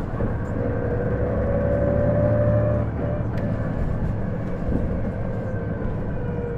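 Inside an Isuzu Erga city bus under way: a diesel engine rumble with a drivetrain whine that rises slightly for about three seconds, then drops away and comes back falling slowly. This is the abnormal whine the bus makes on acceleration, likened to an automatic transmission's whine and suspected to come from the transmission.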